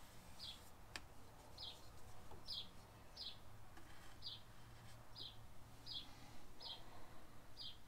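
A bird chirping a short, high, slightly falling note over and over, about once a second, nine times. It is faint, over a low steady hum.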